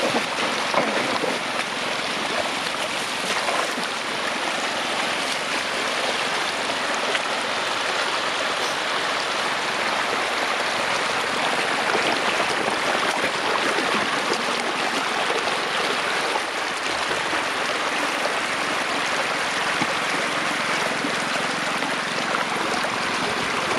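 Floodwater rushing steadily, a continuous loud hiss of flowing water.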